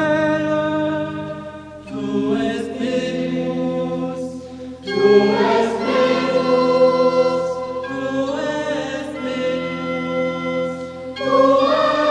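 Background music: a choir singing long held chords, a new phrase swelling in roughly every three seconds.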